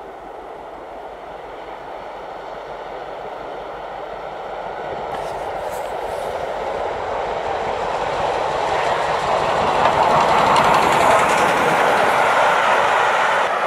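A train of coaches hauled by an LMS Black Five steam locomotive passing by. It grows steadily louder as it approaches and is loudest about ten to twelve seconds in as the coaches roll past, with faint clicks of wheels over the rail joints.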